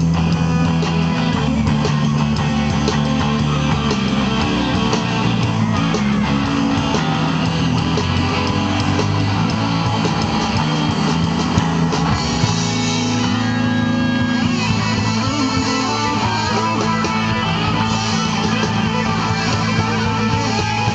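Live rock band playing loud: electric guitars, bass guitar and a drum kit in a blues-rock jam, the bass line shifting to a new pattern about twelve seconds in.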